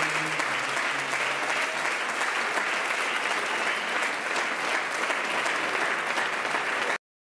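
Audience applauding steadily after a sung improvised verse, cutting off suddenly near the end.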